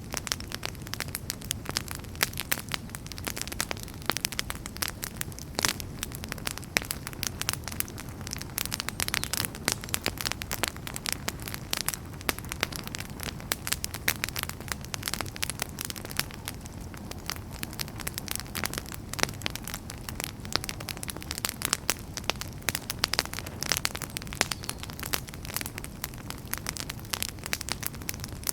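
Campfire crackling and popping: a dense, irregular stream of sharp snaps over a low steady rumble of burning.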